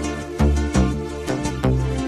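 Background music: sustained notes over a low bass, with a few soft percussive hits.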